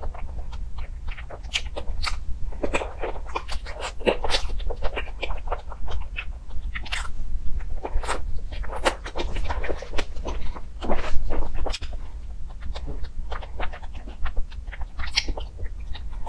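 Close-miked mouth sounds of eating a soft cake: irregular wet smacks, clicks and chewing, with a steady low hum underneath.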